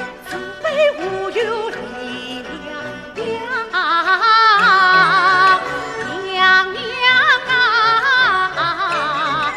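Yue opera singing: a woman's voice in the male-role (xiaosheng) style, holding long notes with a wide, wavering vibrato about four seconds in and again near the end, over traditional Chinese orchestral accompaniment.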